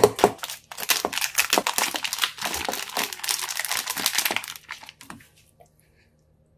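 Clear plastic wrap and a black plastic bag crinkling as a pack of raw chicken gizzards is unwrapped by hand, dying away to a few small crackles about five seconds in.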